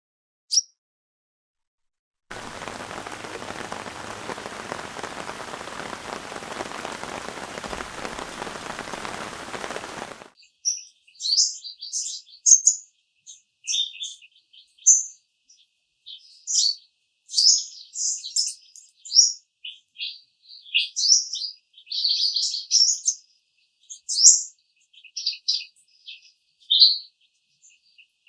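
Steady rain hiss for about eight seconds that cuts off suddenly, then a small songbird singing in quick, short, high chirps.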